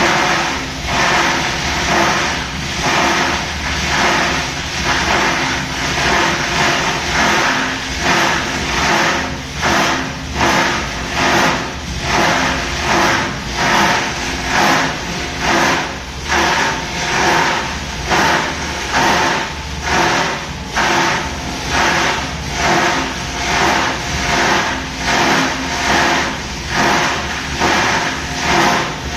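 Plastic rope and scrap grinder machine running continuously under power, its noise swelling and easing about once a second.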